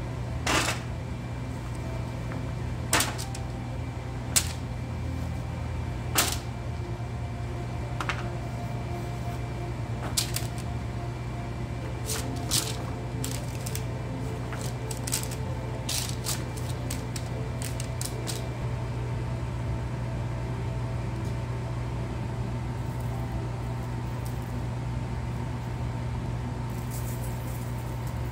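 Raw sweet potato cubes being scooped off a wooden cutting board by hand and dropped onto a parchment-lined baking sheet: scattered light knocks and taps, more than a dozen over the first two-thirds, then they stop. A steady low hum underneath throughout.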